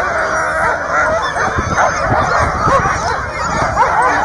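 A chorus of many harnessed sled dogs yelping, yipping and howling over one another, eager to run, with wind rumbling on the microphone.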